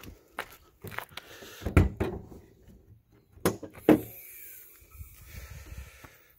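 Car hood being unlatched and lifted open: a series of sharp clacks and knocks, the loudest about two seconds in, with two more close together near four seconds in.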